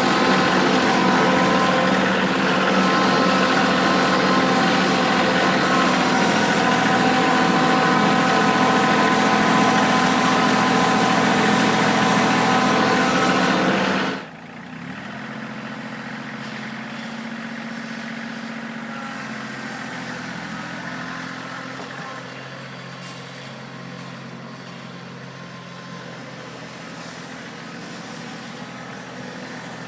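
Kioti CK2610 compact tractor's diesel engine running steadily at raised revs. About halfway through the sound drops abruptly, and the engine runs on much quieter to the end.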